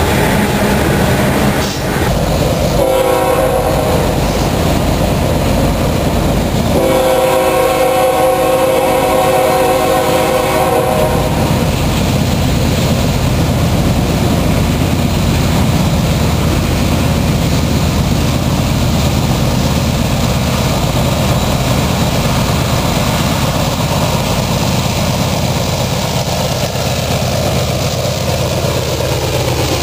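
Freight train on the move. Cars clatter past for the first couple of seconds, then an approaching Norfolk Southern diesel locomotive sounds its multi-note air horn: a short blast about three seconds in and a long one from about seven to eleven seconds. After that a steady low rumble of the locomotives' engines and the rolling train continues as they come by.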